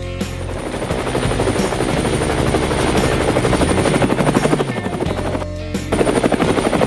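Helicopter rotor sound effect, a rapid, even chopping, over background music. The chopping drops out briefly about five and a half seconds in, then resumes.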